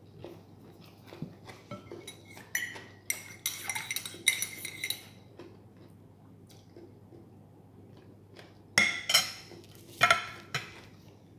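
Metal spoon stirring in a ceramic mug, clinking and ringing against its sides in two spells of quick clinks. The second spell, near the end, has the loudest clinks.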